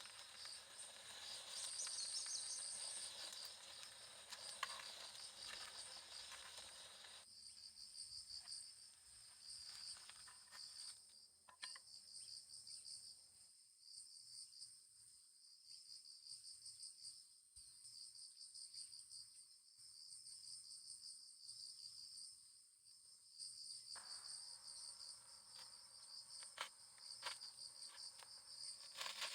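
Insects chirping in a steady, high, finely pulsing trill, with scattered light clicks.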